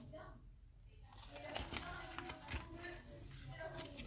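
Faint handling of Pokémon trading cards: a few soft taps and rustles.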